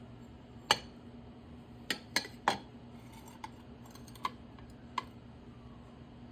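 Hard items being handled: about seven sharp clicks and light knocks, irregularly spaced, with a quick run of three near the middle.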